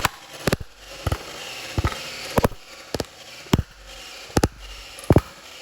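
Motorized, battery-powered Nerf blaster firing single shots: about ten sharp pops, roughly half a second to a second apart.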